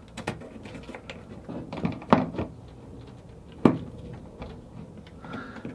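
Scattered clicks and knocks of tools and small metal parts being handled while connecting wiring at a boat engine's ignition, with a sharper knock about two seconds in and another a second and a half later.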